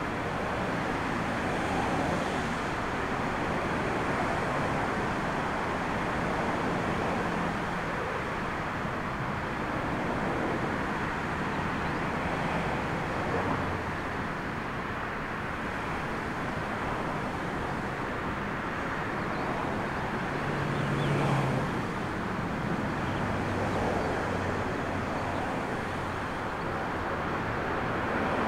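Twin-engine jet airliner's engines at takeoff thrust during the takeoff roll: a steady rushing roar that grows somewhat louder near the end as the aircraft lifts off and climbs towards overhead.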